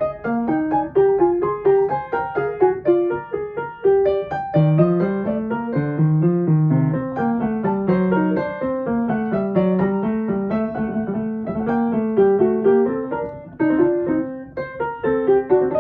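Piano playing a melodic piece: a tune of separate struck notes over a lower line that moves step by step.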